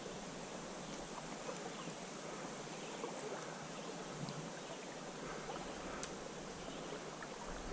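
Faint steady hiss of a slow-flowing creek, with a few small ticks and one sharp click about six seconds in.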